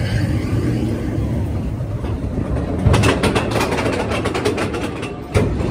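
Seven Dwarfs Mine Train coaster car running along the track with a steady rumble, then a fast run of even clicks, about ten a second, for a couple of seconds as it nears the lift hill, ending in a thump.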